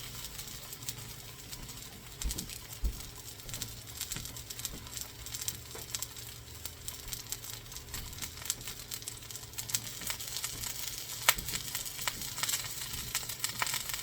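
Homemade veal patties frying in oil on a hot griddle: a steady crackling sizzle. A couple of low knocks come about two seconds in, and a single sharp click later on.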